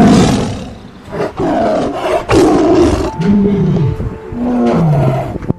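Tiger roaring: a loud roar right at the start, the loudest sound, then two more roars and two lower calls that fall in pitch near the end.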